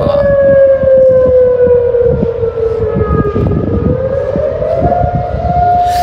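Civil air-defence siren sounding the air-raid alarm signal during a city-wide test: one loud wailing tone that slowly sinks in pitch for about three and a half seconds, then climbs back up and holds steady near the end.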